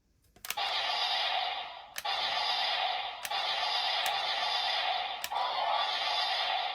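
Kamen Rider Geats PDX Laser Raise Riser toy playing a steady hissing electronic sound effect through its small speaker, with a sharp click each time it restarts, four or five times.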